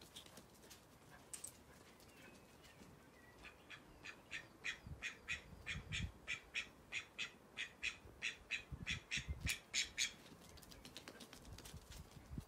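Duck quacking in a fast run of short calls, about three or four a second, starting a few seconds in and stopping a couple of seconds before the end. A few low thumps come alongside.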